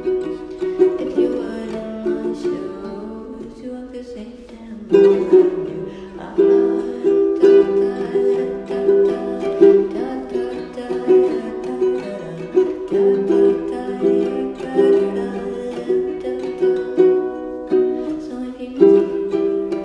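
Ukulele playing chords, plucked and strummed in a steady rhythm. About four seconds in, the playing thins out to a softer stretch, then strong chords come back.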